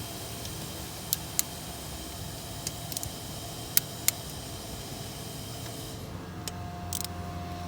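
A few sharp metallic clicks, mostly in pairs about a third of a second apart, from hand tools at work on bolts being tightened on the engine, over a steady low hum.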